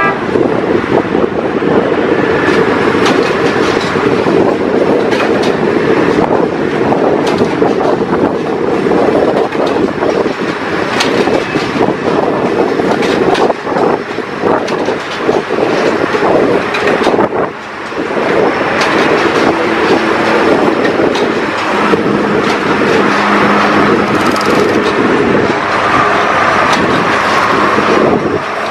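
Rail track-laying machine at work: a steady heavy mechanical din with frequent sharp metallic clanks and knocks.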